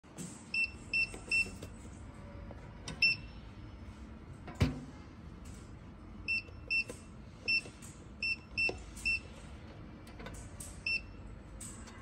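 Electronic hotel room safe's keypad beeping once for each key press as a code is keyed in: about eleven short high beeps, singly and in quick groups. A single sharp thump comes about four and a half seconds in, the loudest sound.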